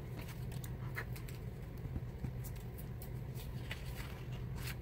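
Pencil lead scratching on paper in a series of short, quick strokes, the last one the loudest, as fur is sketched in with light swooping marks.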